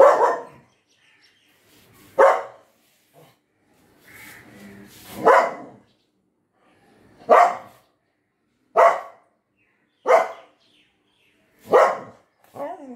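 Dog barking in single loud barks, about eight of them, one every second or two, with a softer last bark near the end.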